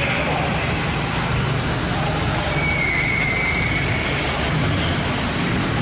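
BMW R1200RT motorcycle engine running at low speed as the bike rolls slowly across the ferry's car deck, over a steady noisy hum. A brief high squeal comes about two and a half seconds in.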